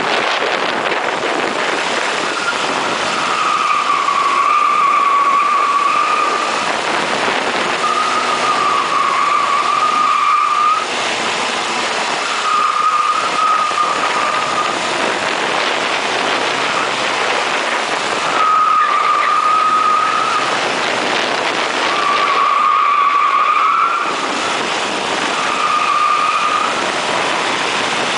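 1980 Ford Fiesta Supersport driven hard around a race circuit, heard from on board as engine, road and wind noise. A high steady whine comes and goes six times, each lasting one to three seconds, and the noise drops briefly about eleven seconds in and again near the end.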